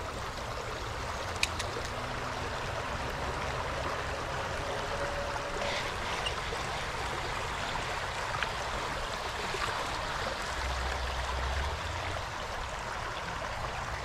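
Shallow creek running over rocks: a steady rush of water trickling through a riffle.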